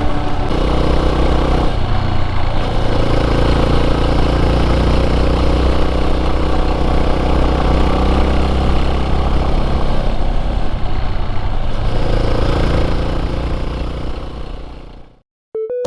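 Yamaha Serow 250's single-cylinder engine running while riding, its note shifting with the throttle a couple of times before it fades out near the end.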